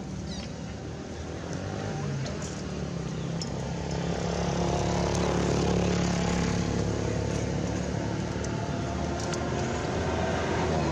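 A motor vehicle's engine running, growing louder over the first few seconds and then holding steady.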